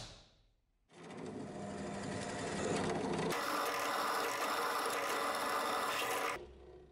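Drill press running with a twist bit boring through a small aluminium plate. The pitch and brightness rise about a third of the way in as the bit cuts into the metal, and the sound cuts off near the end.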